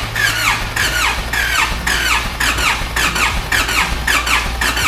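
Nissan ZD30 diesel engine running, with a steady low hum and a high squeak, falling in pitch, repeating two or three times a second. The engine is the one the mechanic reckons has a holed piston, pushing smoke out the breathers.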